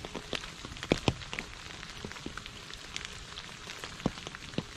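Rain falling into shallow puddles and onto wet leaves: a steady hiss with many separate drops plinking into the water, a couple of louder plops about a second in and another near the end.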